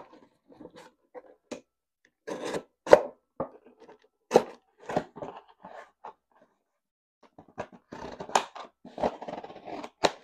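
A cardboard shipping box and its packaging being handled and opened: a scatter of separate sharp knocks and scrapes, with a denser run of scraping and rustling near the end.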